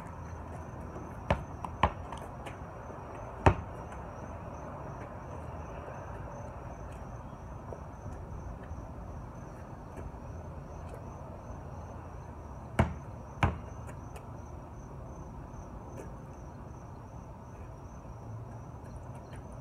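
A basketball thudding five times, three in the first few seconds and two more a little past halfway, over a steady high-pitched insect trill.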